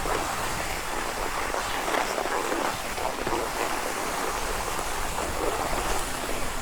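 Skis sliding steadily over packed snow while being towed uphill on a T-bar drag lift: an even, continuous hiss.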